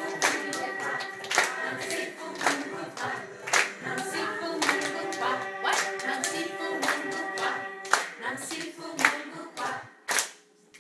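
A group of children singing a song together and clapping along on the beat, about one clap a second. The singing ends about eight seconds in, and a last clap comes near the end.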